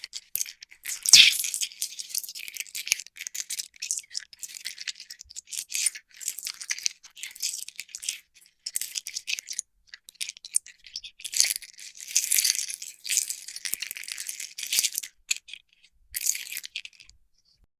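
Dry, irregular rattling and scratching in quick uneven bursts, mostly high and hissy, with a sharper click about a second in; it stops shortly before the end.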